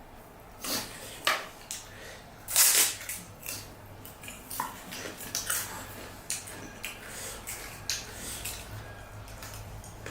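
Eating pani puri up close: irregular crunches of the crisp puri shells and small clinks, the loudest crunch about two and a half seconds in, over a steady low hum.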